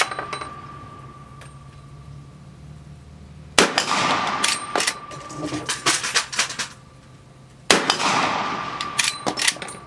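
Two shots from a Henry .45-70 Government lever-action rifle, about four seconds apart. Each is followed by the clang of a hit on a steel target, which rings on and fades over a few seconds. At the start, the ring from an earlier hit is still fading.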